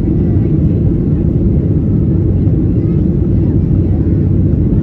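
Steady low roar of a Boeing 737 airliner's jet engines and airflow, heard inside the passenger cabin as the plane climbs after take-off.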